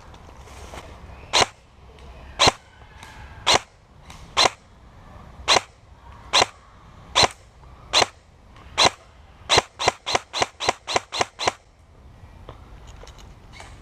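Airsoft gun firing: about nine single shots roughly a second apart, then a quick string of about nine shots at around five a second.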